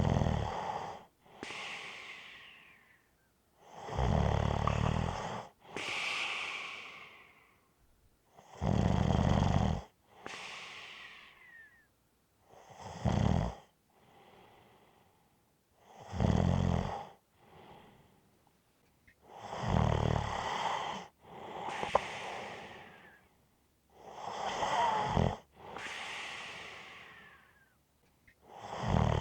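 A person snoring in a steady rhythm, about one breath cycle every four seconds: each loud snore has a low rattle and is followed by a softer, breathy exhale that fades away.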